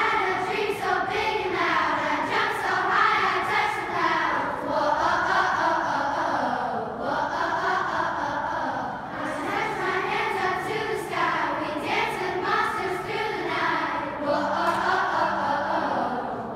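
Children's choir singing together, with phrases rising and falling and short dips between them.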